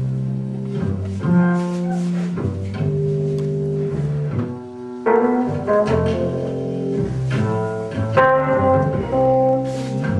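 Instrumental music of sustained low notes that change pitch about every second, turning brighter and busier from about five seconds in.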